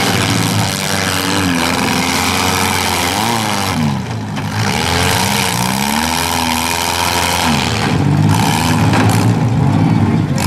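Several demolition-derby compact cars' engines revving up and down at once, their overlapping engine notes rising and falling every second or two.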